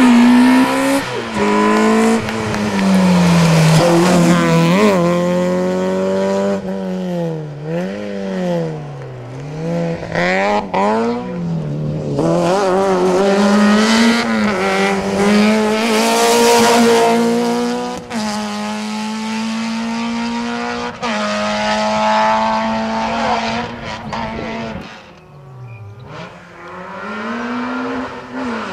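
Rally car engine driven hard on a stage, its pitch climbing and dropping again and again through gear changes, braking and acceleration. Quieter about 25 seconds in, then rising again.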